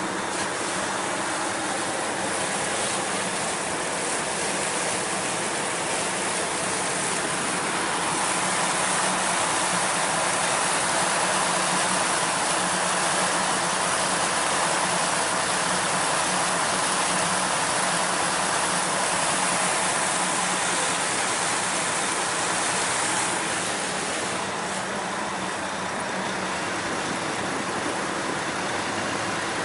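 A ferry's engine running steadily under way, with the wash of water churned up behind the boat. It grows a little louder for a stretch in the middle.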